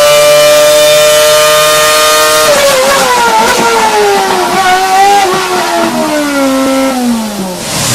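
Formula 1 V8 racing engine running at a steady high pitch, then its revs drop, the note falling gradually over about five seconds with small wobbles until it is low near the end.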